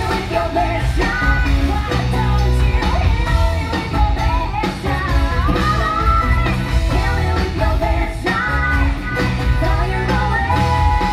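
Live rock band playing an upbeat song, with electric guitars and singing.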